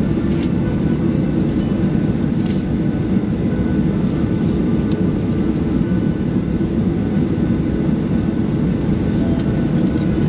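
Boeing 737-800's CFM56 jet engines at low taxi power, heard inside the cabin over the wing: a steady, loud rumble with a faint whine above it.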